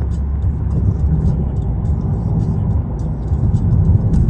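Car driving at freeway speed, heard from inside the cabin: a steady low rumble of tyres and engine.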